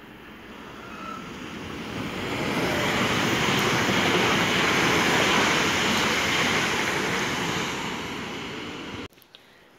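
A red electric regional train passing at speed on the track beside the platform: a rush of wheel and air noise that swells as it comes closer, is loudest as the cars go by, then eases as it moves away, and cuts off suddenly near the end.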